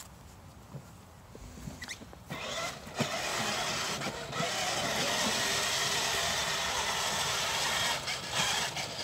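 Battery-powered Harley-Davidson kids' ride-on motorcycle driving, its electric motor and gears whirring steadily with the plastic wheels rolling over the ground. It starts about two seconds in after a few light clicks and stops near the end.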